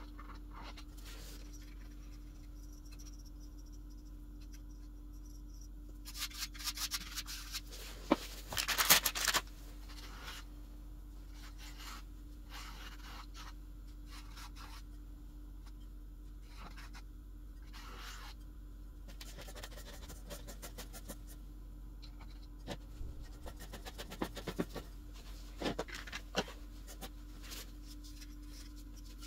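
Hand scraping and rubbing on a loudspeaker woofer's cone and rim in two spells of short, uneven strokes, the louder about eight seconds in: the work of clearing the rotted foam edge so that it can be replaced.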